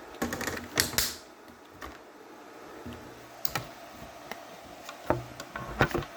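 Scattered clicks and clacks of a computer keyboard being handled or typed on. A flurry comes in the first second, a few single clicks follow, and another flurry comes near the end.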